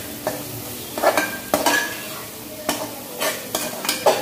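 Spatula scraping and knocking in an aluminium pressure cooker as a masala is stirred, in repeated irregular strokes, over a steady sizzle of the masala frying in oil.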